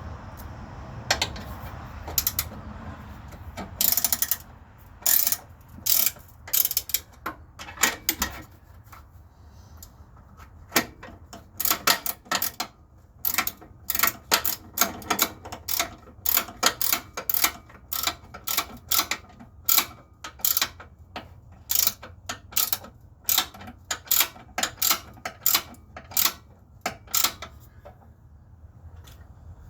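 Hand ratchet wrench clicking in repeated short strokes as a bolt is run in, with sharp metallic clicks about one to two a second.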